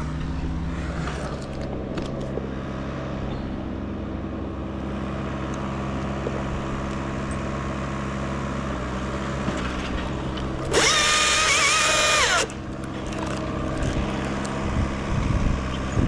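Battery-powered Husqvarna T540i top-handle chainsaw revved once for about a second and a half, a high steady whine that drops away as the trigger is released, over a steady low engine hum.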